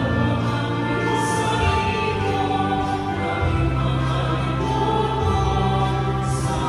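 Choir singing a hymn with instrumental accompaniment, with sustained low bass notes under the voices.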